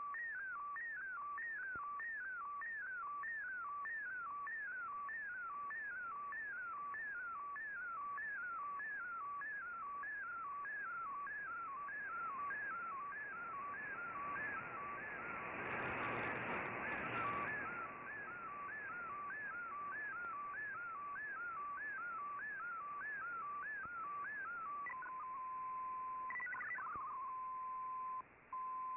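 Digital picture transmission received on a shortwave radio and decoded as an MFSK image: a warbling tone that sweeps down over and over, about two and a half times a second, over a bed of static. Midway, a swell of static and crackle rises and fades. Near the end the sweeps stop and a steady tone holds, cut off briefly once.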